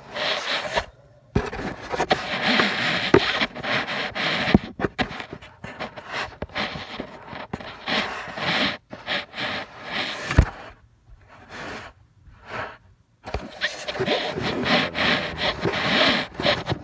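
Handling noise on a phone's microphone: fabric rubbing and scraping over it in uneven spells, with a few sharp knocks.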